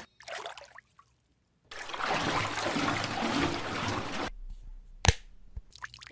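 Running water trickling steadily for about two and a half seconds, followed by a single sharp click about five seconds in.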